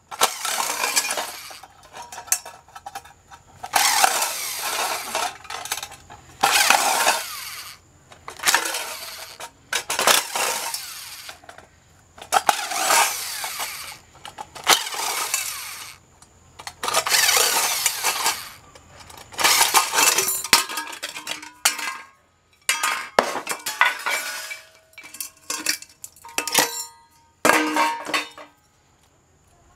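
Cordless impact driver run in repeated short bursts of about a second each, backing out Phillips screws from an aluminium appliance base plate. Between the bursts, loose metal screws and small parts clink, with more of these clinks in the last few seconds.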